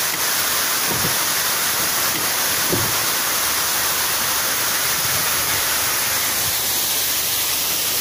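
Waterfall pouring down a rock canyon wall: a steady, even rush of falling water.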